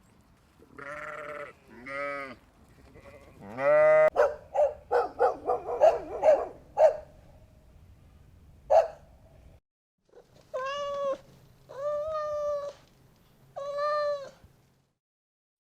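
Farm animals bleating: a few short, arching calls early on, a quick run of short calls about four to seven seconds in, and, after a cut, three long even-pitched bleats near the end.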